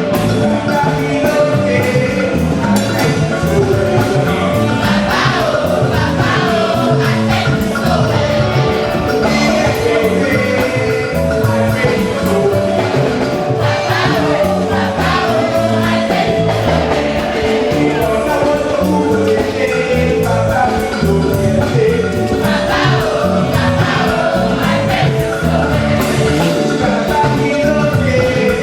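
Gospel song: singing voices over instrumental accompaniment with a steady beat.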